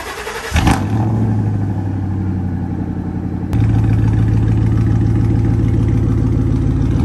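1997 Ford F-150's 5.4-litre V8 with true dual exhaust starting about half a second in and settling into a steady idle. About three and a half seconds in it gets louder as the truck pulls away.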